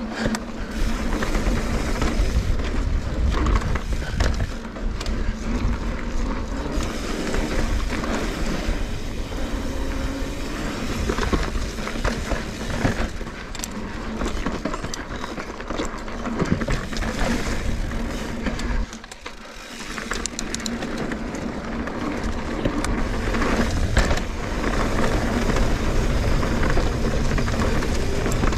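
Trek Fuel EX 8 full-suspension mountain bike ridden down a dirt trail: a steady rumble of tyres on dirt with scattered rattles and clicks from the bike over bumps, and wind on the camera microphone. It briefly goes quieter about two-thirds through, then picks up again.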